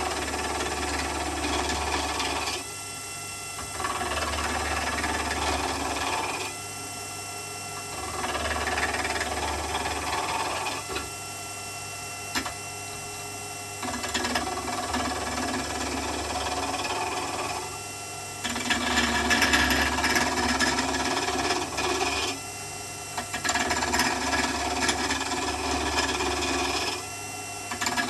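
Small bench-top wood lathe running steadily while a turning tool cuts a spinning wooden pen blank in repeated passes of about two to four seconds each, a rough scraping cutting noise over the motor hum, with short quieter lulls between passes when the tool comes off the wood.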